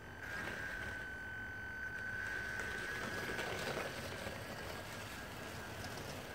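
Small electric drive motor of a WPL B1 6x6 RC truck whining at one steady high pitch as the truck drives along towing a second RC vehicle; the whine fades over the second half as the truck moves away.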